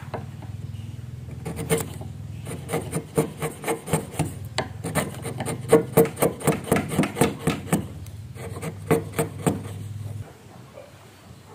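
Steel wood chisel paring across the cut face of a wooden beam, shaving off curls in short, sharp scraping strokes, about three a second, stopping a couple of seconds before the end.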